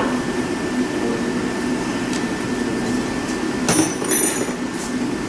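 Steady low background hum with a single sharp metallic clink about three and a half seconds in: a wrench knocking against metal as the lock nut on the turbo actuator's adjusting screw is tightened.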